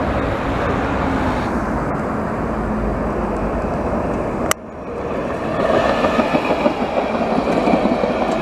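Road traffic and then a Trambesòs low-floor tram (Alstom Citadis type) approaching and running close past on street track. Its running noise swells and grows louder over the second half, after a sharp click about halfway through.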